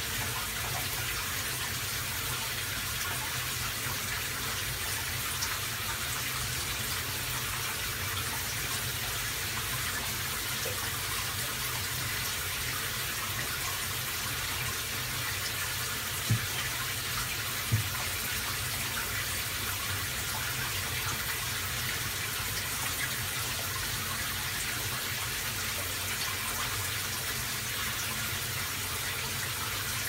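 Steady hiss of water running in a small tiled bathroom, with two short knocks about halfway through.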